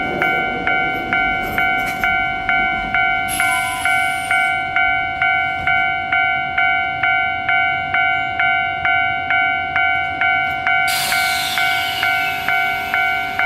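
Electronic railway warning bell ringing steadily about twice a second as trains meet at the station. Over it come two bursts of hissing air from the trains, one about three seconds in and a longer one about eleven seconds in.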